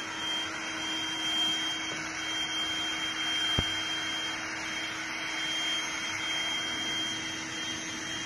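Electric air pump running steadily as it inflates an inflatable vinyl pool, a continuous rush of air over a steady motor hum and whine. A single short knock about three and a half seconds in.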